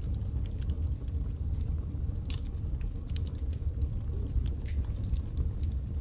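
Wood logs burning in a fireplace, crackling: a steady low rumble of flame under frequent, irregular sharp pops and snaps.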